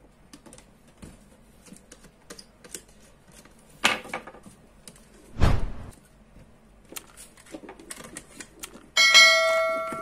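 Small clicks and rustles of wires and a switch plate being handled on a desk, with a sharp knock about four seconds in and a heavier thump a second later. Near the end a sudden bright bell chime rings out and fades: the sound effect of a subscribe-button bell animation.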